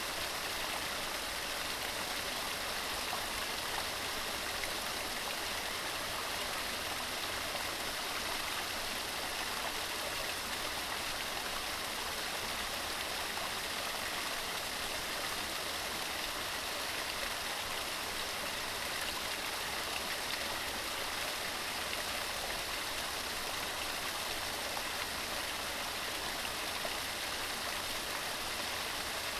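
Mountain stream running over rocks, a steady rushing and splashing of water.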